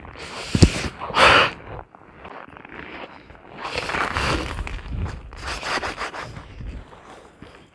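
Gloved hands and winter clothing rubbing and scraping on wet ice at an ice-fishing hole, with a sharp knock about half a second in and a loud scrape just after it.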